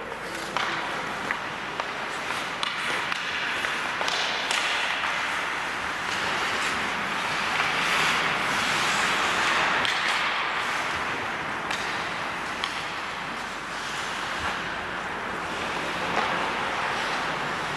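Ice hockey skates scraping and carving the ice, swelling to a louder hiss in the middle, with scattered sharp clacks of sticks and puck.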